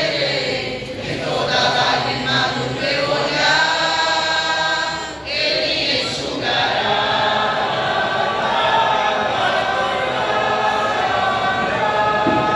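A gospel vocal group singing in harmony, with several voices holding long notes through the second half.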